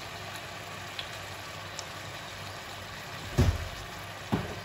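Beef and broccoli stir-fry sizzling steadily in a wok. Two dull knocks come near the end, under a second apart.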